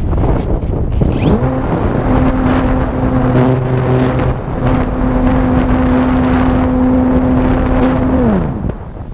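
Model plane's electric motor and propeller spinning up about a second in, running at a steady pitched hum, then winding down and stopping near the end. Wind rushes across the microphone throughout.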